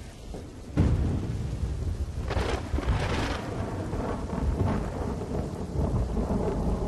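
Thunder rumbling over steady heavy rain, with a deep roll of thunder setting in about a second in.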